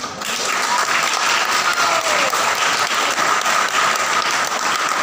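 A group of schoolchildren applauding: dense, steady clapping.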